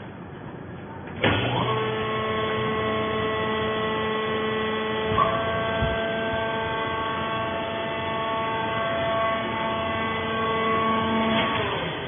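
Hydraulic power pack of a vertical fibre baler starting up about a second in and running with a steady whine while the rams lift the press plate off the bale, with a brief clunk about five seconds in. It stops near the end.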